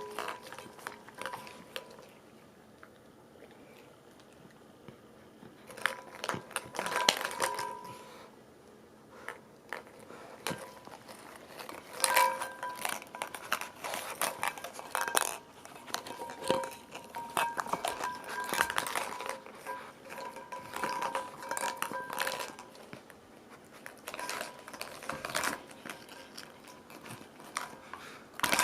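A dog rummaging through and mouthing toys and plastic Easter eggs: irregular rustling, crinkling and plastic clatter with bites. Faint background music plays underneath.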